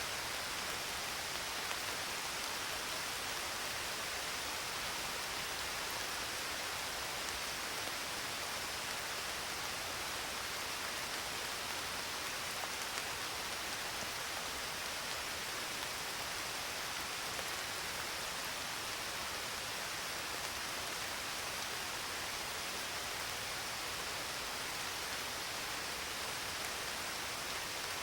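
Steady rain falling, an even hiss of drops without breaks or changes.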